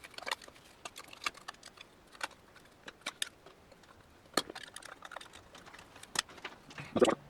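Metal pick clicking and scraping against the low-reverse clutch piston in a 700R4 transmission case, prying at it to lift it out: irregular sharp metallic clicks, with a louder clatter of knocks near the end.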